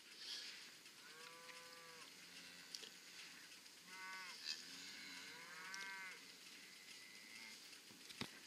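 Cattle mooing faintly from the herd of cows and calves: three drawn-out calls, the first about a second in, a shorter one around four seconds and another soon after.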